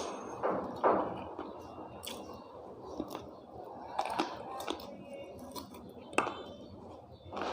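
Close-up eating sounds of someone chewing khichuri and chicken leg curry: irregular wet smacks and small clicks, loudest about a second in.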